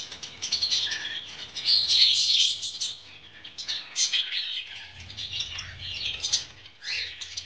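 Duck drinking from a clay water bowl: its bill dabbling in the water makes a quick, irregular run of wet clicks, splashes and slurps.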